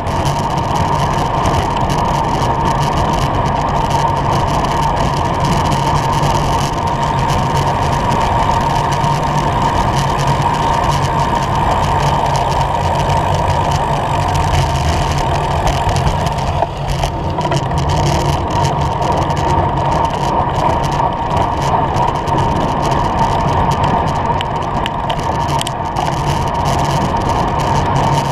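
Steady rush of wind and road noise on a helmet-mounted camera while cycling along a city road, with motor traffic running alongside.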